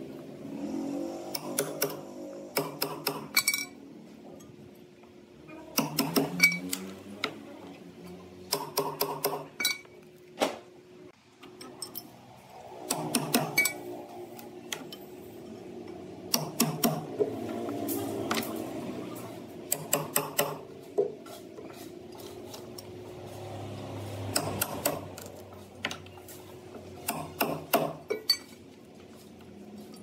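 Groups of sharp metallic clinks and knocks, several in quick succession every few seconds, some ringing briefly, over a steady low hum.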